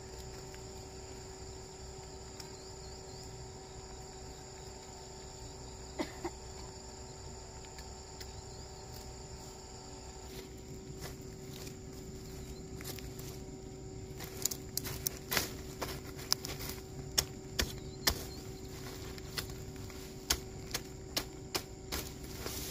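Steady calling of insects, crickets among them; from about halfway through, a quick run of sharp chops and snaps as a machete blade cuts through weed and vine stems.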